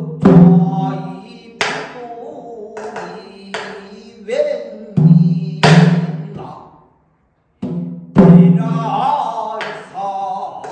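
Pansori singing: a voice holding long, bending notes, punctuated by sharp strikes on a buk barrel drum, about six in all, with a brief pause in the middle.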